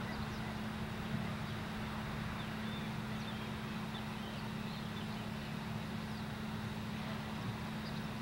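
A steady low mechanical hum over outdoor background noise, with a few faint, short high chirps.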